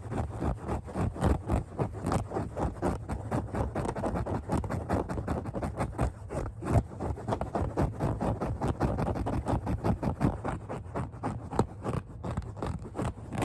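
Scratching on a hard cap: fast, close-set scratch strokes that run on without a break.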